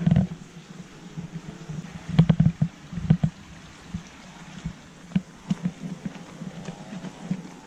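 Footsteps on a dirt trail strewn with dry leaves, uneven short thuds and crunches, loudest about two seconds in and again about five seconds in, over a low steady rumble.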